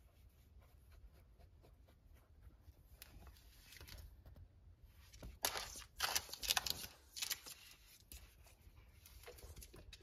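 Rabbit's claws scraping rapidly at a hardwood floor as it digs, in a loud flurry of scratches about five seconds in, with fainter scratching before and after.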